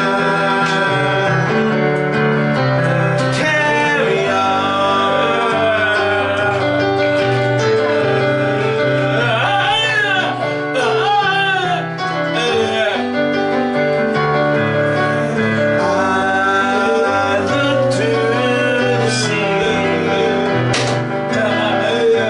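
Music: a man singing over guitar and keyboard accompaniment, with sustained chords and a moving bass line.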